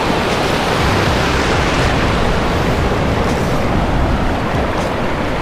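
Ocean surf washing and breaking over the shallows in a steady rush, with wind buffeting the microphone.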